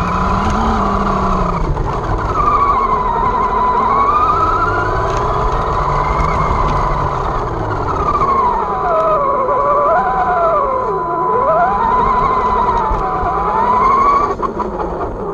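Losi 22S short course truck's electric motor and drivetrain whining, the pitch rising and falling irregularly as the throttle is worked, over tyre and chassis noise and a steady high-pitched tone.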